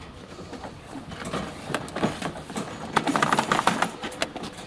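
A metal wire dog cage rattling and knocking as it is shoved into a car's cargo area with a dog inside, with a quick run of clattering knocks about three seconds in.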